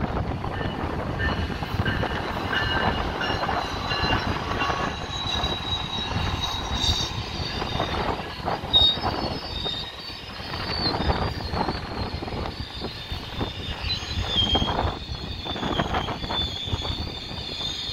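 GO Transit commuter train pulling into a station: an MP40PH-3C diesel locomotive and then double-deck bilevel coaches roll past with a steady low rumble and uneven knocking from the wheels. Over this run several high, steady squealing tones from the wheels and brakes as the train slows.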